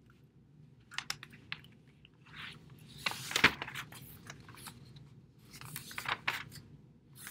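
Scattered clicks, taps and crinkling rustles close to the microphone, the loudest about three and a half seconds in, over a faint low hum.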